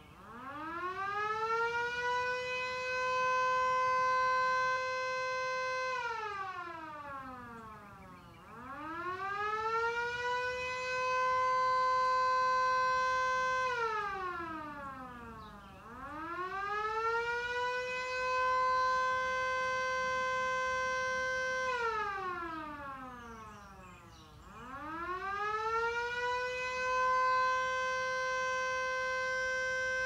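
Vixen Horns siren wailing: the pitch rises over about two seconds, holds steady for about three, then slides down, repeating about every eight seconds, four times over.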